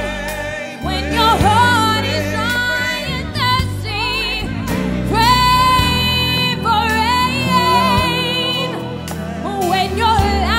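Background music: a song with a singer holding long notes with vibrato over a steady accompaniment.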